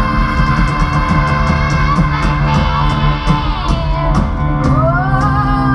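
Live band playing loud rock music with a fast, steady drum beat and held notes; a melody line glides upward about five seconds in.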